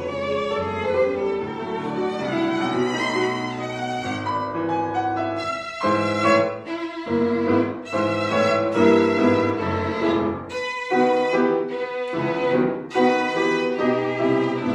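Background instrumental music with a violin carrying the melody.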